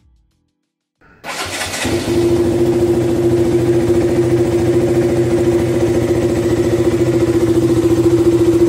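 A vehicle engine starting about a second in, after a moment of silence, then running at a steady speed with an even hum.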